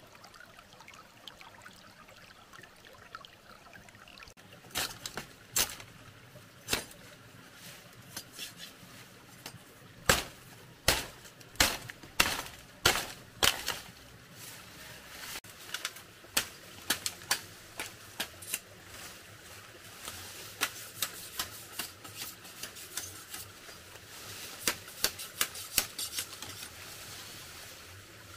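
Irregular sharp knocks and clicks over a faint hiss. The strongest come in a run of strikes about halfway through, and they thicken into a quicker patter near the end.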